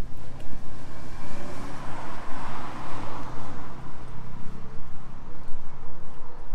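A car driving past on a city street, its tyre and engine noise swelling to a peak about halfway through and then fading away.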